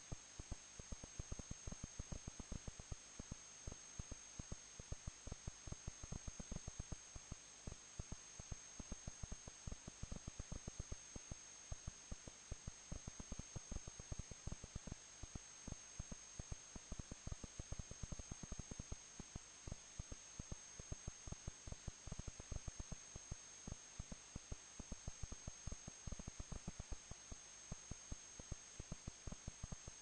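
Steady electrical hiss with a constant high whine and a dense, irregular crackle of many faint pops a second: line noise on a remote wildlife camera's audio feed, with no bird calls.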